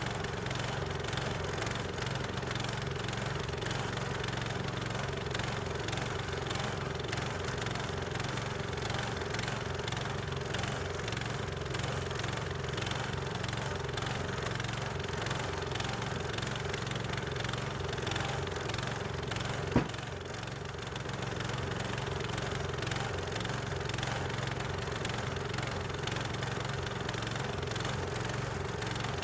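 Small gas engine of a Harbor Freight portable bandsaw mill running steadily, with one sharp click a little past two-thirds through.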